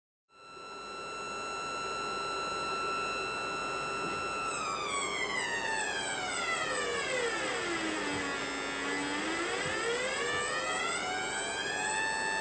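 High-pitched electrical whine with many overtones from a pulsed water-cell drive circuit, starting suddenly. It holds steady for about four seconds, then glides down in pitch, bottoms out around eight to nine seconds in, and rises again, as the drive frequency changes.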